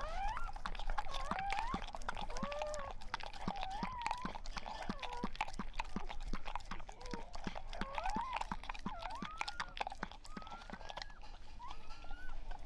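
Weimaraner lapping ice cream from a plate: a steady run of wet licking clicks, about two to three a second. Thin, squeaky whimpering and squealing runs through it, typical of a newborn puppy.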